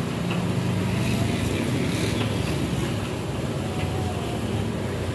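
A steady low engine hum, with faint voices in the background.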